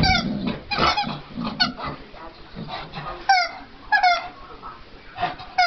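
Squeaky rubber ball squeaking in short, irregular bursts as a Staffordshire bull terrier bites and chews on it. Each squeak is brief and slides down in pitch.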